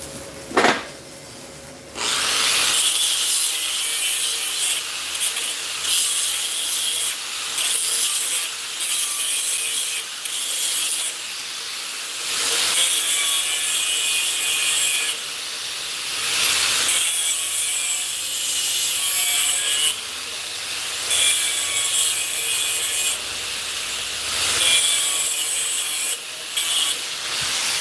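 Handheld angle grinder deburring the edges of a freshly machined metal spacer ring, the disc grinding in a run of passes that swell and ease in loudness. It starts about two seconds in after a single sharp knock, and stops just before the end.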